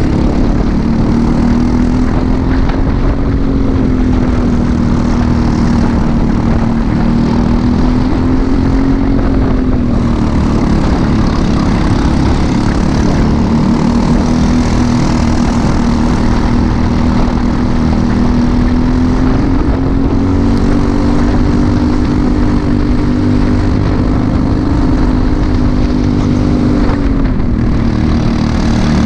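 Briggs & Stratton LO206 four-stroke single-cylinder kart engine at race speed, heard onboard. Its note climbs along the straights and drops off twice, about ten seconds in and near the end, over a loud rushing noise.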